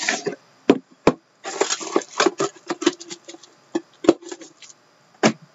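Crinkling cellophane shrink-wrap and sharp knocks from a 2013-14 Upper Deck The Cup hockey card tin being unwrapped and handled: a string of separate clicks and knocks, with a burst of crackling rustle about a second and a half in.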